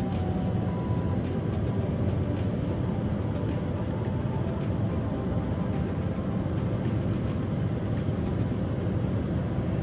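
Small propeller aircraft's engine and propeller running steadily in cruise, heard from inside the cabin as a constant low drone.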